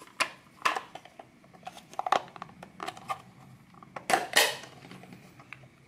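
Plastic cover of a Rugged Ridge dash-mount inclinometer being handled and snapped back onto its housing: a series of small plastic clicks and knocks, the loudest and longest about four seconds in.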